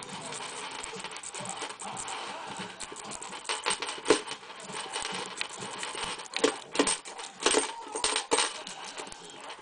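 A metal lock-picking rake scraping and rattling against the pins inside a six-pin Tri-Link padlock's keyway. It makes a continuous scratchy clicking that turns into louder, sharper clicks through the middle of the stretch.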